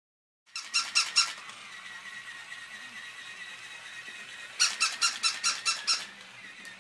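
Battery-powered plush toy dog giving short electronic yips: about four starting half a second in, then a quicker string of about eight some four seconds in, over a faint steady high whine.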